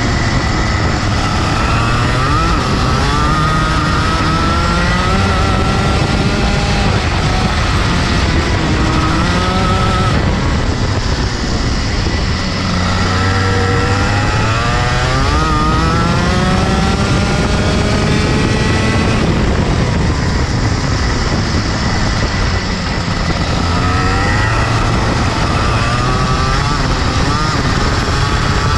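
Rotax Max 125cc two-stroke single-cylinder kart engine heard onboard at racing speed, its pitch repeatedly climbing as it accelerates out of corners and falling away when the driver lifts to brake for the next one.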